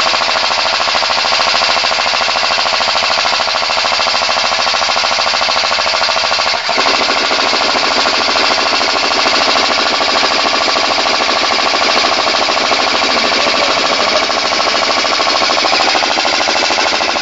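Laser tag replica of an FN Minimi light machine gun firing a long sustained burst: its internal recoil gearbox cycles rapidly, giving a continuous fast mechanical rattle. The rattle dips briefly about six and a half seconds in and then carries on with a slightly changed tone.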